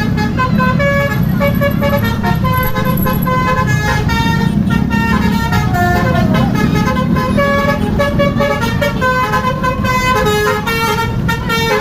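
Bus's multi-tone musical horn (telolet-style) playing a quick melody, notes changing every third to half a second, over a steady low rumble.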